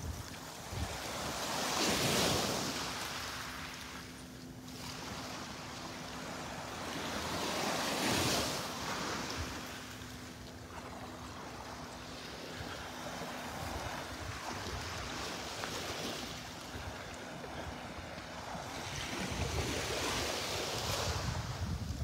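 Gentle Gulf of Mexico surf lapping at the shoreline, with three small waves swelling and washing up, about two, eight and twenty seconds in. Low wind rumbles on the microphone underneath.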